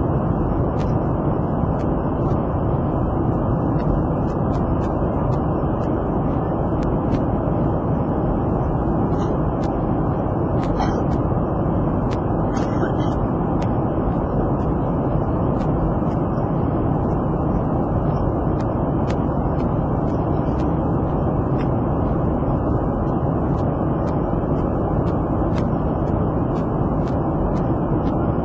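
Steady, loud airliner cabin noise: an even rumble of engine and air noise, heaviest in the low end, that does not change.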